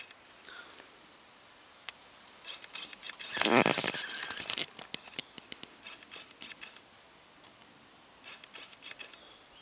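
Footsteps rustling and crackling through leaf litter and brush, in several short bursts, the loudest about three and a half seconds in.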